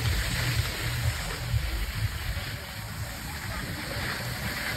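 Skis sliding and hissing over wet, slushy piste snow during a fast descent, with wind buffeting the phone's microphone in an uneven low rumble.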